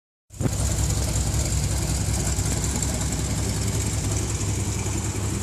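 A 1969 Corvette's L46 350 cubic-inch small-block V8 running steadily with a low, even rumble and no revving.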